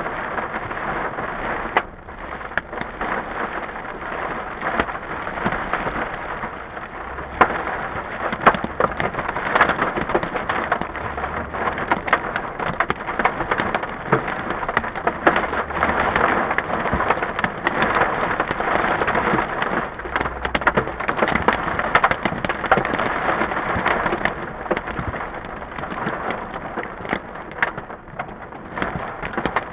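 Hail and heavy rain pelting a parked car's roof and windshield, heard from inside the car: a dense, steady drumming full of sharp individual impacts. It builds after the first few seconds and eases a little near the end.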